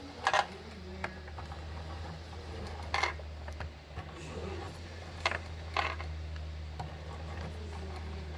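Concept2 rowing machine running, a steady low hum with a sharp clack roughly every two to three seconds: the strange noise the machine is making.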